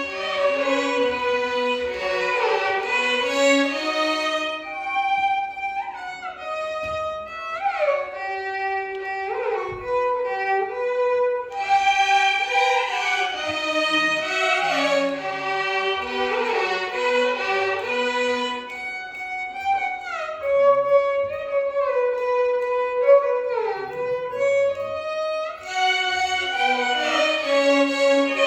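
Violin ensemble playing Carnatic music, with sliding, ornamented notes over a steady held tone. The full ensemble thins to fewer violins about five seconds in, swells back around twelve seconds, thins again near twenty, and comes back in full near the end.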